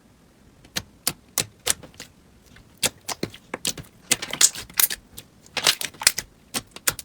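Slime being squeezed and poked by hand, giving sharp, irregular clicks and pops, with denser crackling stretches about four and six seconds in.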